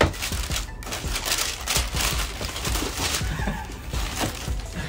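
Tissue paper rustling and crinkling in a sneaker shoebox as a shoe is unwrapped and lifted out, a dense run of crisp crackles.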